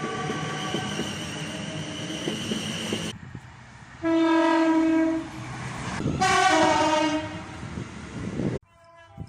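Train horns sounding in a run of spliced recordings: a steady horn chord over the rumble of a passing train, cut off about three seconds in. Then two loud horn blasts, the second ending in an abrupt cut near the end to a fainter horn.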